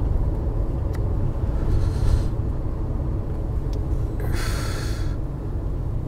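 Steady low rumble of a Daihatsu Hijet kei van driving, heard from inside the cabin. Two short hisses cut in, about a second and a half in and again past four seconds, the second louder.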